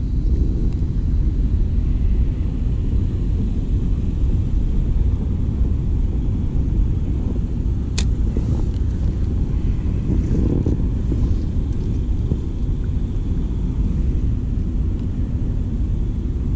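Wind buffeting the microphone, a steady low rumble, with one sharp click about halfway through.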